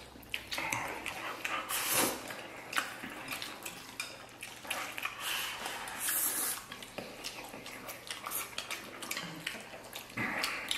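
Two people eating noisily: wet slurping and chewing of stewed pork belly and sauerkraut over rice, with many small clicks of chopsticks against porcelain bowls. The loudest slurps come about 2 and 6 seconds in.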